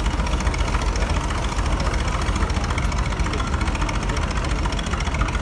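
J.I. Case steam traction engine running steadily, a regular rhythmic beat over a heavy low rumble.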